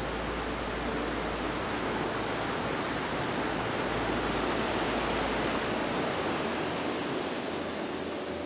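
Whitewater rapids rushing over boulders: the steady, unbroken noise of fast tumbling river water.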